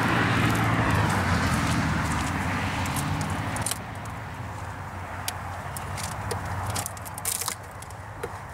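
A low steady drone that drops away about four seconds in, followed by scattered clicks, knocks and scrapes as a wooden bee package box is handled and its cover pried with a metal hive tool.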